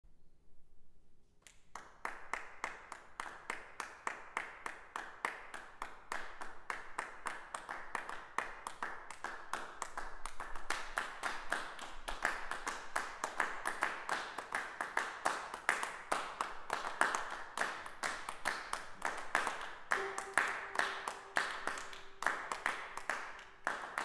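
Many people clapping hands in a steady, regular pattern of sharp claps, starting about a second and a half in. A single held note comes in near the end.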